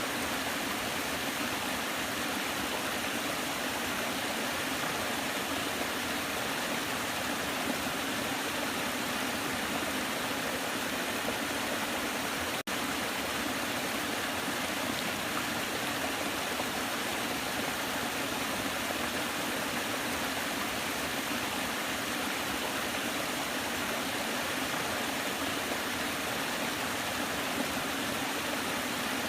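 Waterfall rushing steadily, an even roar of falling water, broken once by a split-second dropout about halfway through.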